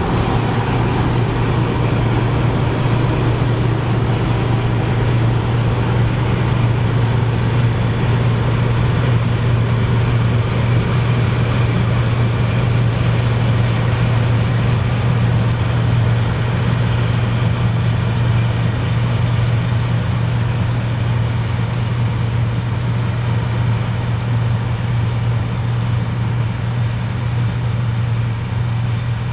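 Claas Lexion 780TT combine harvester running steadily while harvesting barley: a constant deep engine hum with an even wash of machinery noise over it.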